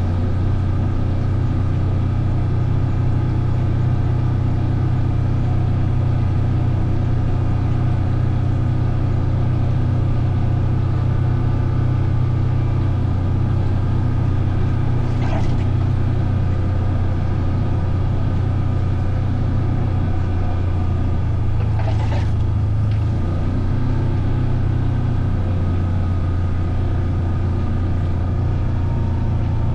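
A vehicle's engine running steadily with a low hum while being ridden, with two brief higher noises, one about halfway through and one some seconds later.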